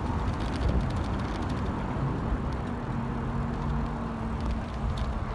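Wind buffeting the microphone of a bicycle-mounted camera during a road ride, with a steady low rumble. A faint low hum comes in about a second and a half in and fades near the end.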